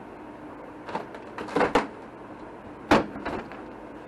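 Wood wall paneling being pulled off the wall by hand, giving a few sharp cracks and knocks as the sheet breaks free; the loudest comes about three seconds in. A steady low hum runs underneath.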